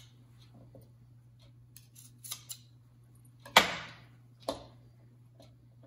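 Metal garlic press worked by hand while crushing garlic cloves: a few light metal clicks, then a sharp clack about three and a half seconds in and a smaller one about a second later.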